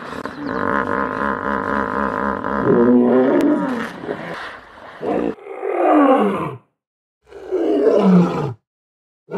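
Hippopotamus calling: a long run of rapid, even pulses lasting almost three seconds, then several deep roars that each fall in pitch, with short gaps between them.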